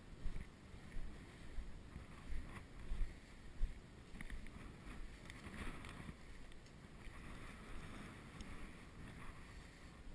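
Wind rumbling on the microphone, with irregular low thumps of footsteps in loose sand during the first few seconds, then a steadier rustle.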